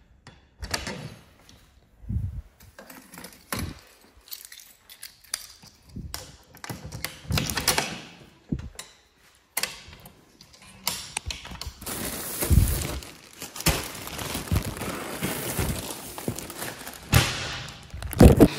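Keys and metal mailbox and parcel-locker doors handled: a string of clunks and clicks. Later come denser rustling and knocks as plastic mailer packages are pulled out of the locker and carried.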